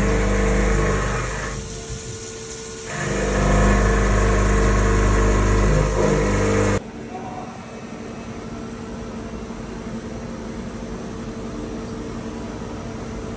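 CNC milling machine running as it machines a steel block: a steady machine hum with several tones, dipping briefly about two seconds in. About seven seconds in it cuts off sharply to a quieter steady hum.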